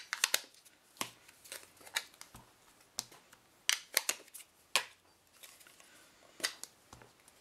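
Plastic-cased Distress Ink pads tapped face-down onto a craft mat and set down again, a series of sharp clicks and knocks about a second apart.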